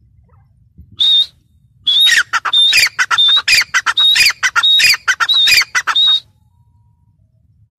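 Grey francolin calling: one short high call about a second in, then a fast run of loud, repeated high-pitched calls, each a held whistled note with falling notes, stopping about six seconds in.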